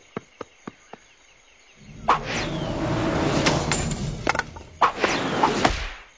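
Cartoon sound effects: a few light clicks, then about two seconds in a loud, clattering commotion with several sharp whacks and a falling swish, which dies away just before the end.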